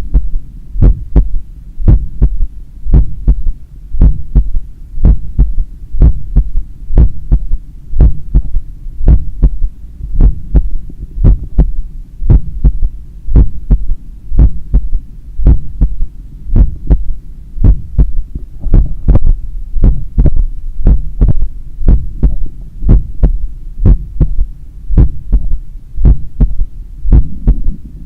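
Loud human heartbeat heard through a stethoscope at the chest apex, about one beat a second over a steady low rumble, each beat a cluster of two or three thuds: first and second heart sounds followed by a third heart sound (S3). The heart is still recovering from an 8 km run.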